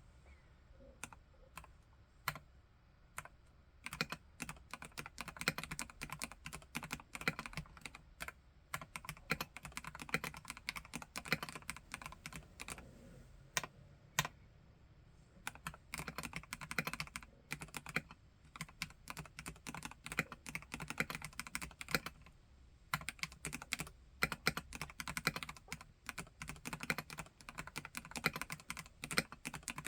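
Typing on a Vortex KBt RE:68 mechanical keyboard with Gateron G Pro Red linear switches. It starts with a few single keystrokes, then runs of fast typing broken by two short pauses.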